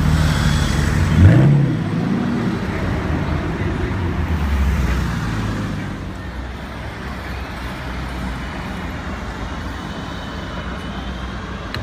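Aston Martin Vanquish's V12 revving as it pulls away, with one sharp rev that peaks and drops about a second in, then fading. For the second half there is steady, quieter street traffic noise.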